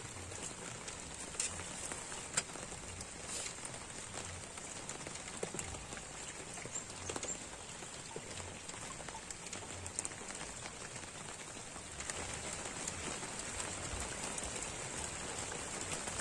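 Light rain falling on the water and the raft: a steady hiss of drops with occasional sharper ticks, growing a little louder about three-quarters of the way through.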